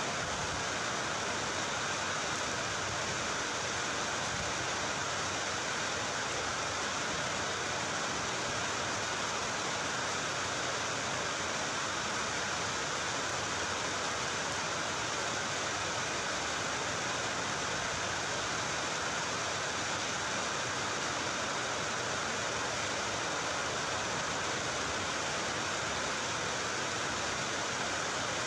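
A steady, even hiss that does not change, with no distinct events standing out above it.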